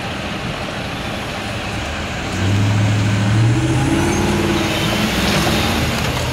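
Road vehicles pulling away across a railroad crossing as traffic resumes: over a steady rumble, a truck engine comes in about two and a half seconds in, getting louder and rising a little in pitch as it accelerates.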